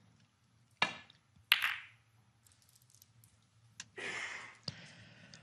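Snooker shot: the cue tip strikes the cue ball with a sharp click about a second in, then the cue ball cracks into the pack of reds half a second later, a cluster of ball-on-ball clicks dying away. Near the end comes a short burst of soft noise and one more click.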